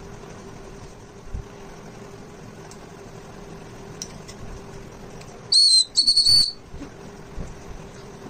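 Small plastic toy whistle on the cap of a novelty pencil, blown in two short high-pitched blasts about five and a half seconds in.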